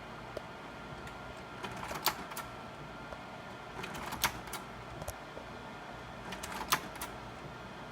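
Sawyer 550R slide projector changing slides from the remote: three slide changes, each a pair of sharp mechanical clacks about a third of a second apart, spaced roughly two seconds apart, over the steady hum of the running projector.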